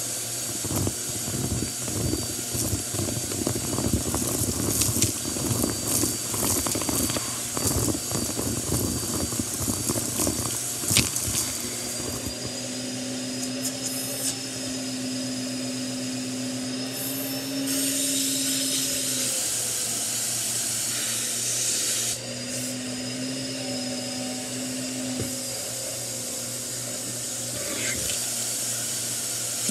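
Bissell upright vacuum cleaner running, its hose sucking up a pile of lint and debris with dense crackling and rattling for the first dozen seconds. The hose then draws free air: a steady run with a high whine and a lower hum that comes and goes.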